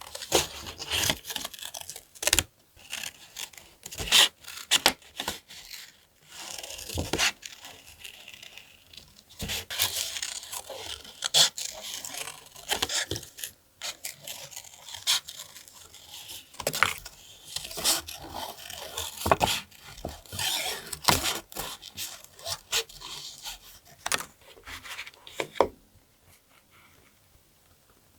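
Paper being torn and handled: irregular rustling, scraping and crinkling with sharp little taps. It goes quiet about two seconds before the end.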